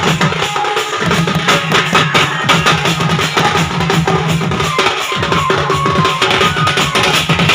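Loud sound band music: fast, dense drumming over a steady low bass note.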